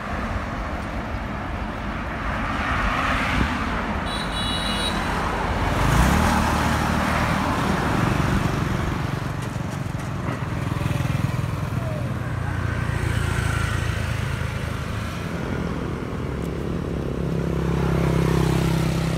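Street traffic with motor scooters passing and an engine running steadily, and a short high beep about four seconds in.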